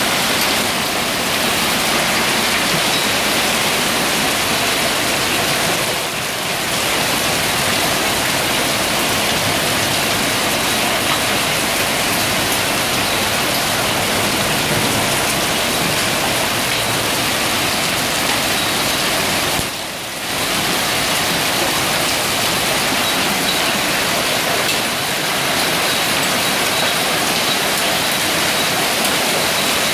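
Heavy hailstorm: hailstones and rain pelting the paving, walls and foliage in a dense, steady hiss. The sound drops briefly about six seconds in and again about twenty seconds in.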